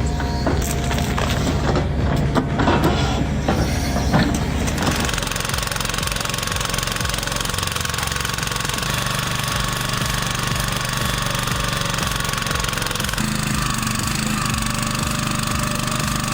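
Heavy machinery tearing wood: loud cracking and splintering over an engine drone for the first few seconds, then a change to a steady machine engine running under load with a held whine.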